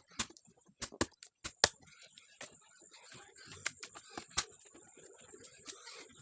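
Dry wood being broken up for firewood: a dozen or so sharp, irregular cracks and knocks, the loudest about a second and a half in, with light rustling between them.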